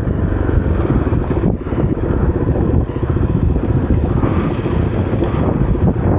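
Kawasaki KLX300's single-cylinder four-stroke engine running under way on a rocky trail, mixed with wind buffeting on the action camera's external microphone. The sound dips briefly twice, about a second and a half and three seconds in.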